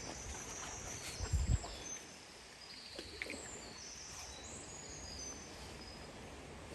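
A songbird singing a run of short, high whistles over a steady rush of water, with a couple of low bumps on the microphone about a second and a half in.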